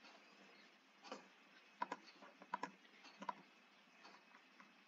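A handful of faint, irregular clicks from a computer mouse and keyboard.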